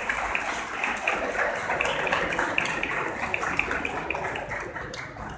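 Audience applauding, the claps slowly dying down.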